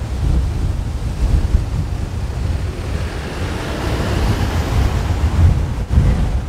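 Wind buffeting the microphone, a strong uneven rumble. A rushing noise swells about halfway through and fades again near the end.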